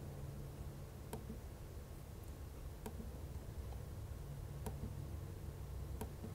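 Faint clicks from a laptop being worked by hand, four or so a second or two apart, over a low steady room hum.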